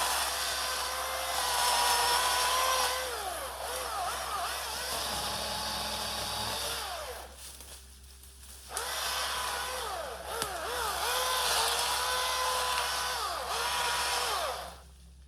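Battery-powered electric chainsaw cutting brush: a high motor whine that dips in pitch and recovers again and again as it takes load. It stops briefly about halfway through and again near the end.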